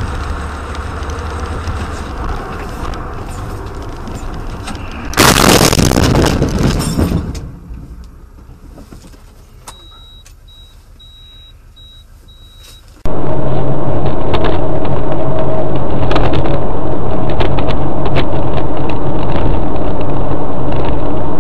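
Dashcam audio of a car on the road. About five seconds in, a loud blast of about two seconds fades out as a vehicle burns in a fireball ahead; then it goes quiet with a short run of high beeps. About thirteen seconds in it switches abruptly to loud, steady road and engine noise of a car driving.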